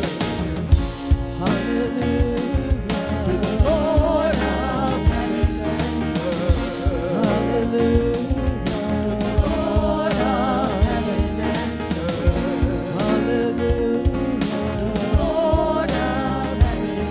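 Live contemporary worship music: a singer with vibrato over a full band with a steady beat.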